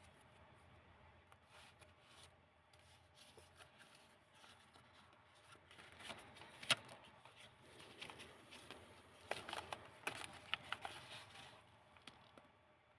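Pages of a handmade storybook made from old book paper being handled and turned, with crisp rustles and crackles that grow busier in the second half and a sharp tap about halfway through.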